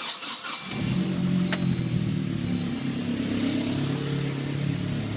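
A 2003 Saab 9-3 SE's engine is cranked by the starter and catches under a second in, then runs steadily with the loud, abnormal noise that started after an oil change. The owner blames sludge. A single click sounds about a second and a half in.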